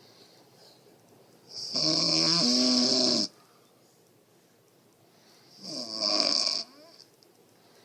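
A woman snoring: two long snores about four seconds apart, the first lasting about a second and a half.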